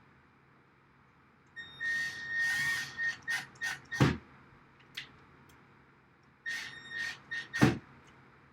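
Power drill running in two short bursts with a steady high motor whine, driving screws into the rack rails. Each burst is broken by short clicks and ends with a sharp knock.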